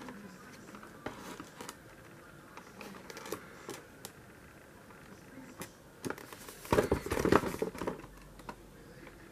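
Clear plastic wrapping crinkling as a cardboard headset box is handled, with scattered clicks and taps. A louder burst of rustling about seven seconds in.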